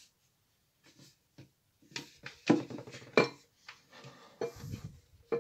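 Clatter of small hard objects being handled, a run of clicks, knocks and clinks with two sharp knocks about two and a half and three seconds in.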